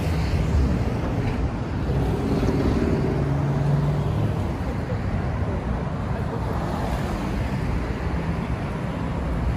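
City street traffic: steady road noise from cars passing on a multi-lane avenue, with one vehicle's engine hum standing out for a moment about two to four seconds in.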